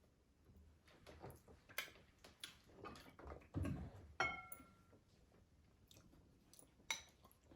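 Close-miked chewing and eating sounds, with scattered sharp clicks and soft mouth noises. About four seconds in there is a short ringing clink, and a sharp click comes near the end.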